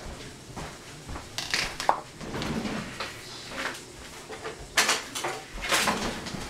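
Kitchen clatter: a string of knocks and clinks from dishes, containers and utensils being handled, with a short ring just before two seconds in and the loudest knocks near the end.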